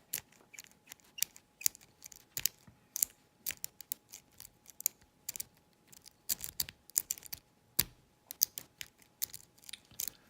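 Sparrow's worm rake pick working the wafers of a Corbin wafer cabinet lock under a tension wrench: irregular sharp metal clicks and scrapes, a few a second, with a quieter stretch midway. The lock does not open.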